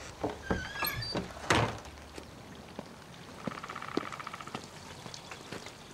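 A wooden front door shuts with a thud about a second and a half in, after a few lighter knocks of the latch. Then come light footsteps and a short buzzing trill about halfway through.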